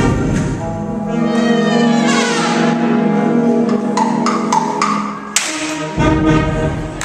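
School band playing the closing bars of a Christmas piece: brass-led held chords, a rising run of notes, a few short accented notes, then a loud final chord near the end.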